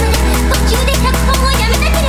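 Electronic music track: a steady fast beat over a sustained deep bass, with a melody bending up and down above it.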